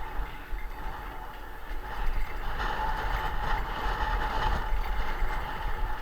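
A vehicle on the move, with road rumble and a steady high squeal from its brakes that gets louder for about two seconds in the middle.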